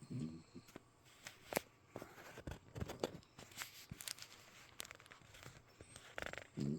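A sleeping dog snoring: one snore trails off about half a second in, and the next starts near the end. In the long pause between breaths there are only faint scattered clicks and ticks.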